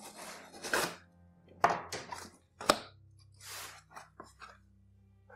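Corrugated cardboard shipping box being opened by hand: a run of short scrapes and rustles of cardboard and packing tape, with two sharp knocks about one and a half and two and a half seconds in.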